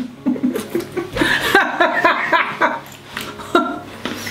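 People laughing and chuckling in short, broken bursts.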